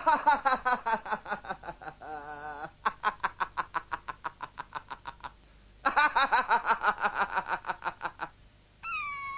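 A man laughing hysterically in rapid cackling pulses, each run sliding down in pitch, in two long bouts with a short break between them. Near the end a steady, wavering electronic tone starts.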